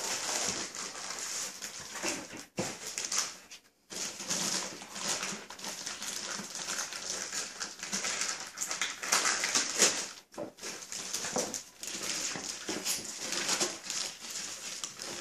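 Thin plastic bag crinkling and rustling in irregular handfuls as it is pulled off a car amplifier, with a few brief pauses.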